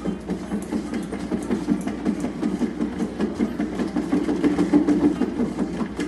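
Large cat exercise wheel spinning under a running cat, rolling on its base with a steady low rumble that pulses quickly.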